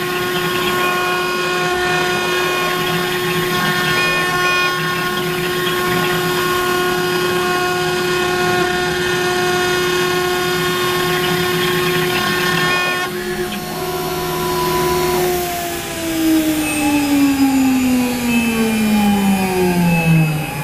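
CNC router spindle running at a steady high pitch while carving MDF. About fifteen seconds in, its pitch falls steadily as the spindle spins down.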